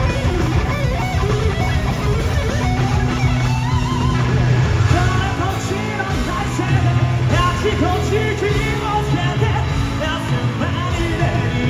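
Live rock band playing loud and steady, an electric guitar with many bending notes over drums and bass, heard through a concert hall's PA.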